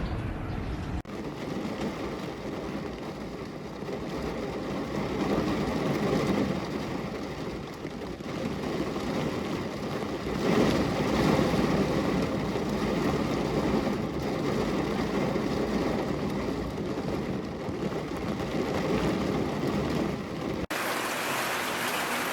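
Heavy rain with a steady rushing noise that swells and eases. It changes abruptly about a second in and again near the end, as at joins between recordings.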